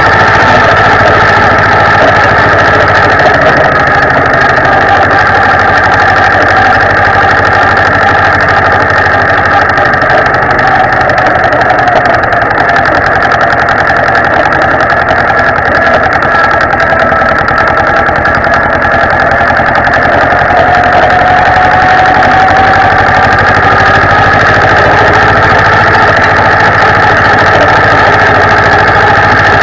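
Zetor 25 tractor's two-cylinder diesel engine running steadily while the tractor drives along, loud and close. Its note sags slightly past the middle and then picks up again.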